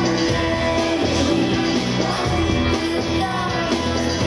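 A song playing: a band backing with a singer's voice, steady and continuous.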